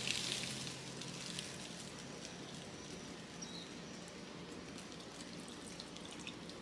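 Thick shoyu-and-sugar marinade poured from a glass measuring cup onto raw chicken thighs in a plastic tray: a faint, steady pouring, after a short rustle that dies away within the first second.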